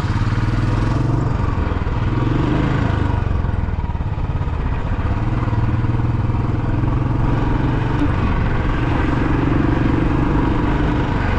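Royal Enfield Bullet motorcycle's single-cylinder engine running steadily while being ridden, its pitch rising and falling slightly as the engine speed changes.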